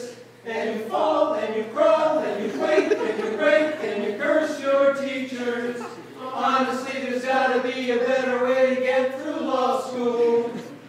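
A small amateur group of men and a woman singing a song together unaccompanied, in phrases with brief pauses between them, one just after the start and another about six seconds in.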